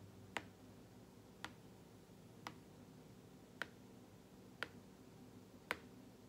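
Pen tapping on a tablet's glass screen, six light sharp taps about a second apart, as it points down a list of letter spellings.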